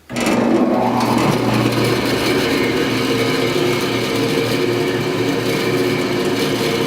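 1976 Powermatic 141 14-inch band saw switched on: its electric motor starts suddenly, rises in pitch as it comes up to speed over the first second, then runs steadily, driving the blade through a new pulley and V-belt. The motor sounds smooth.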